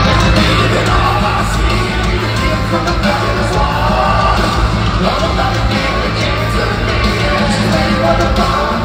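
Heavy metal band playing live in an arena, with guitars, drums and vocals, picked up loud and dense by a phone's microphone.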